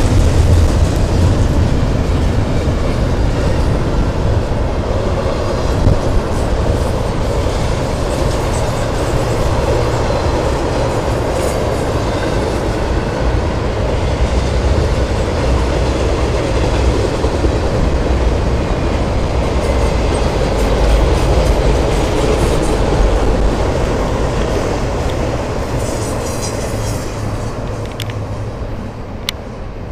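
CSX intermodal freight train's well cars loaded with containers and trailers rolling past: a steady rumble of wheels on rail with clickety-clack over the joints, fading near the end.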